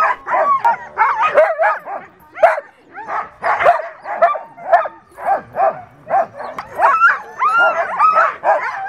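A pack of mixed-breed sled dogs barking and yelping together, short calls overlapping in a constant stream of about two to three a second, some of them whining with pitch that rises and falls.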